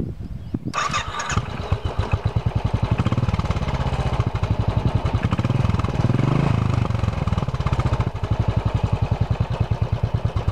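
Royal Enfield Classic 500 single-cylinder engine through an upswept off-road silencer, starting about a second in, then idling with an even, loud beat of exhaust pulses. It revs up briefly around the middle and drops back to idle.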